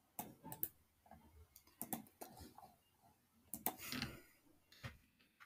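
Faint, irregular clicks of a computer mouse and keyboard as text in a word processor is selected, copied and pasted.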